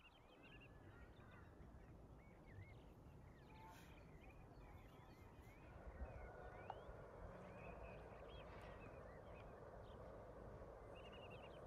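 Faint small birds chirping and trilling, with short gliding calls and quick repeated chirps. A soft, even background rush comes up a little about halfway through.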